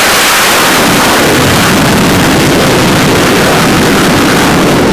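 F/A-18F Super Hornet's twin jet engines at full launch power during a carrier catapult launch: a loud, steady rush of jet noise.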